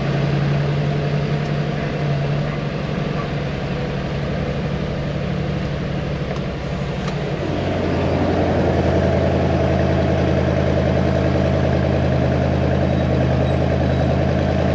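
Diesel engine of a MAN KAT1 military truck running steadily. About halfway through it steps up to a louder, deeper drone.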